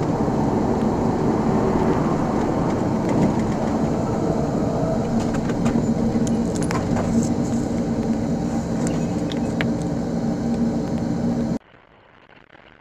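Steady road and engine noise inside a moving vehicle's cabin on a highway, with light rattling and a few faint clicks in the middle. It cuts off abruptly near the end to a much quieter hum.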